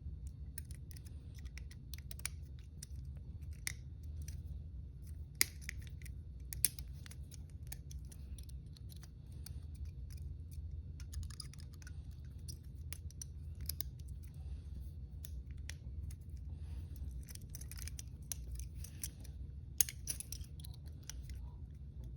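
Hinged handcuffs being picked at the keyhole: scattered small metallic clicks and scrapes of the tool in the lock, with a few sharper clicks, over a steady low hum.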